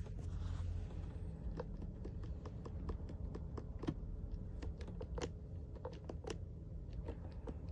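Light, irregular clicks of buttons being pressed one after another, like typing, as a vehicle is selected on a key-programming tool, over a faint low hum.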